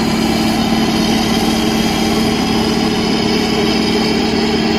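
Diesel engine of an Ammann single-drum road roller (soil compactor) running steadily as it drives, a constant hum with an unchanging pitch.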